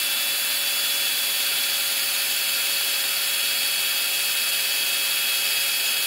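Power drill running at a steady speed, spinning a nitro engine crankshaft against a sanding sponge to bevel a hard edge on the crank: a steady motor whine over a sanding hiss. It cuts off suddenly at the end.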